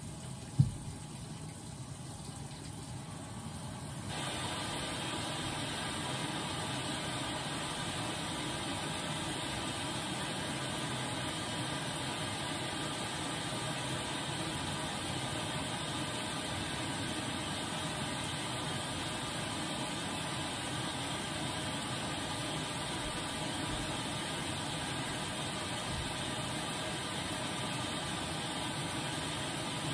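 Whirlpool washing machine running on a load of towels: a single thump about half a second in, then from about four seconds on a louder, steady rushing noise.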